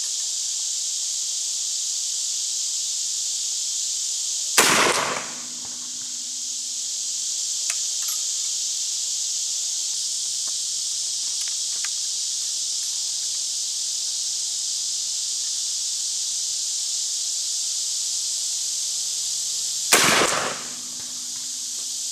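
Two shots about fifteen seconds apart from a reproduction 1847 Springfield Dragoon smoothbore carbine, a muzzleloader charged with 70 grains of 2F black powder and a .662 round ball. Each report rings out briefly, over a steady high insect chorus.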